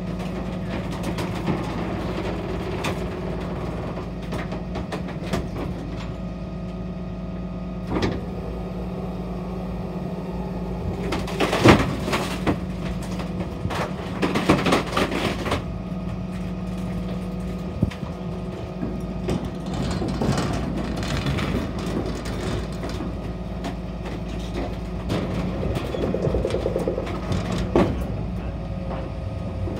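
2002 Dennis Phoenix refuse truck idling steadily at the rear, while timber slats are thrown into its hopper, clattering a handful of times, loudest about twelve seconds in. Near the end a large wheeled steel trade bin rattles up to the bin lift.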